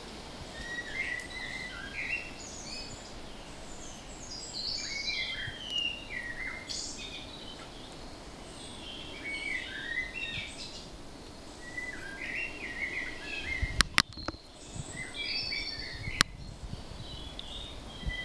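Small songbirds chirping and singing in quick repeated phrases over a steady soft outdoor hiss. Near the end come three sharp taps, two close together and one a couple of seconds later, of unknown source.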